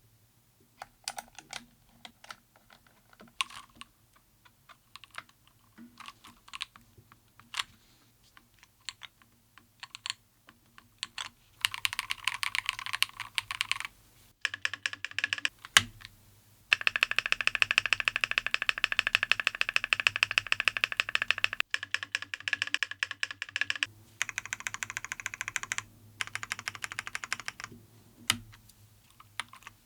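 KiiBoom Phantom 81 V2 mechanical keyboard being typed on: scattered single keystrokes at first, then rapid continuous typing in several runs of a few seconds each.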